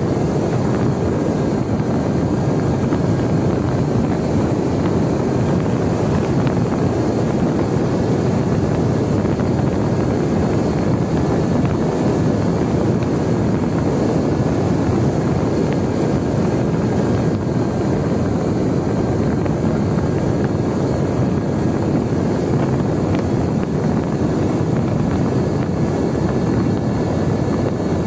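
Brushless electric motor and pusher propeller of a Mini Talon model plane droning steadily in cruising flight, heard from the onboard camera with a constant rush of wind over the airframe and a faint steady high whine.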